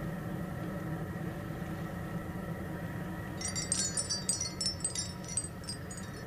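Sci-fi television sound effect: a steady electronic hum, then about three seconds in a rapid run of high tinkling chimes that thins out near the end.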